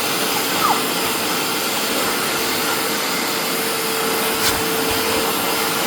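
Bissell 3698 wet carpet cleaner running steadily: an even suction-motor rush with one steady tone through it, and a brief click about four and a half seconds in.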